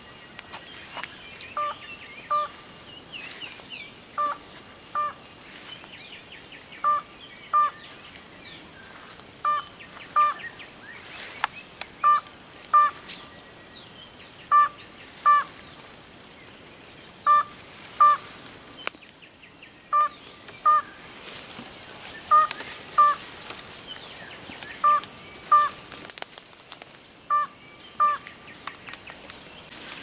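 A two-note bird call, both notes on the same pitch, repeated in pairs about every two and a half seconds, over a steady high-pitched drone.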